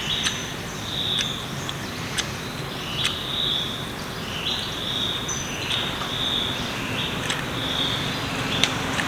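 Insects chirping outdoors in a steady pulsing rhythm, a high buzz roughly once a second, with a few sharp clicks scattered through.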